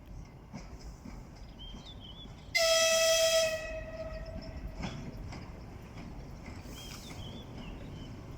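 Horn of an EP20 electric locomotive sounding one short, high blast of about a second, a little under three seconds in, over a low rumble.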